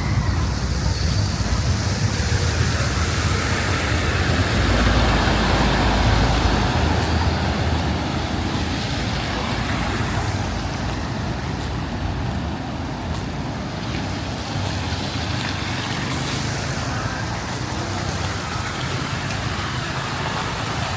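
Street traffic: motor vehicles passing close, with a louder engine rumble about four to seven seconds in, then a steady traffic hum.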